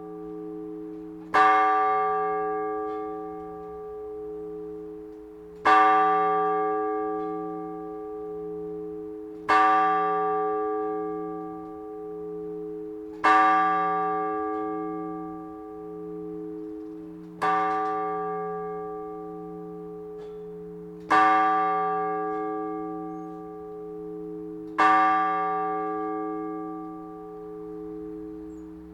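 One large church bell rung in the measured strokes of the Orthodox blagovest, seven strikes about four seconds apart. Each stroke rings on and slowly dies away over a low, wavering hum.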